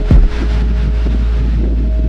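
Hip-hop instrumental beat: a deep, steady bass line with a kick drum whose pitch drops sharply near the start.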